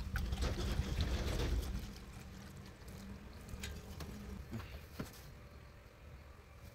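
Antifreeze pouring from a plastic jug through a funnel into a car's radiator filler neck, stopping about two seconds in as the jug is lifted away, followed by a few light clicks.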